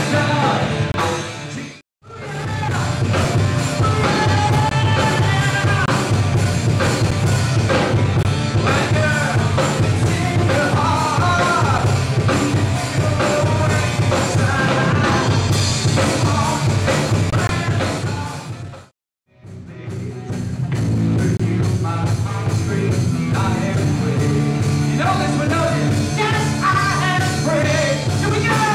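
Live rock band playing with a singer, heard through a camcorder's built-in microphone. The sound cuts out for a moment twice, about two seconds in and again just before twenty seconds.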